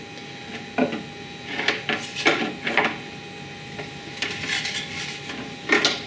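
Handling noise from the microwave interferometer apparatus on its wooden baseboard: scattered knocks, clunks and scrapes as the transmitter is lifted and moved, over a faint steady tone.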